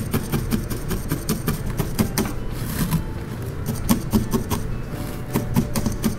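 Felting needle stabbing repeatedly through a wad of wool into a bristle brush mat: quick, irregular crisp taps, several a second.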